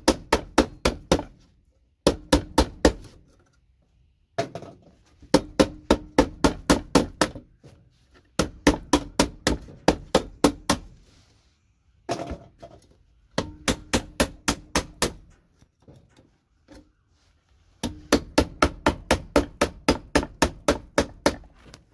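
Hammer rapidly striking a metal tool wedged under the connectors on computer circuit boards, knocking the gold-pin connectors off. The strikes come in quick runs of about five a second with brief pauses between runs, and the metal rings under the blows.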